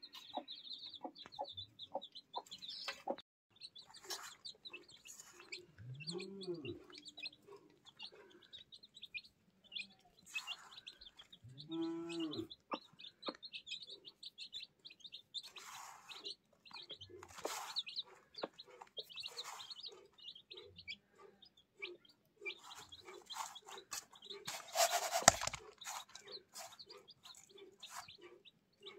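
Newly hatched chicks peeping in a steady stream of short high chirps while the mother hen clucks low, with two longer drawn-out calls and, in the last part, soft evenly repeated clucks. Light taps of pecking at the feed dish run under them, and a brief loud rustle comes near the end.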